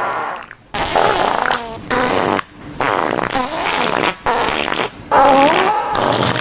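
Fart sound effects: about five separate farts one after another, each lasting half a second to a second and a half, with a pitch that wavers up and down.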